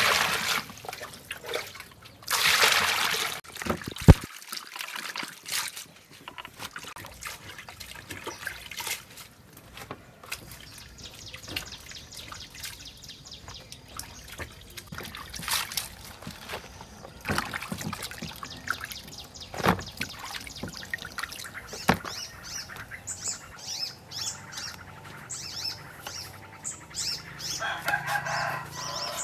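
Water poured into a plastic basin of cabbage and lettuce leaves, with a longer pour about two seconds in, then hands washing the leaves in the water with light splashing and occasional knocks against the basin.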